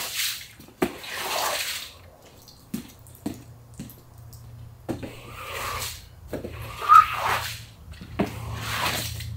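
Rubber-bladed floor squeegee pushing standing water across a wet concrete floor: about five swishing, splashing strokes, with a few light knocks between them as the squeegee is set down on the floor.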